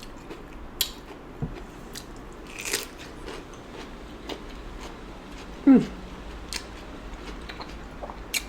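Close-miked eating sounds: wet chewing and lip smacks on saucy seafood boil, with scattered sharp clicks. About six seconds in comes a short, low sound that slides down in pitch, the loudest moment.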